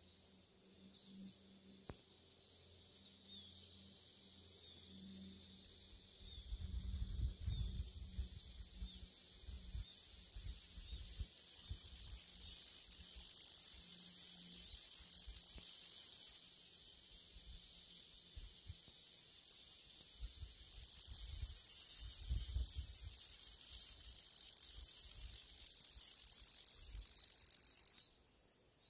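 High-pitched, steady shrilling of singing insects that grows louder over the first several seconds, dips for a few seconds past the middle, then cuts off suddenly near the end. A few low rumbles come through, the strongest about a quarter of the way in.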